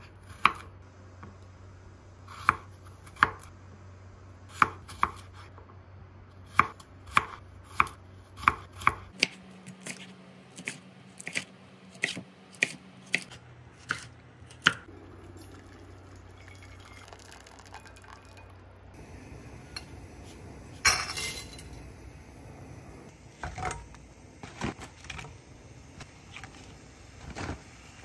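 Kitchen work sounds: a knife chopping on a cutting board in scattered single strokes, then quieter clinks of pans, dishes and utensils, with one louder clatter about two-thirds of the way through.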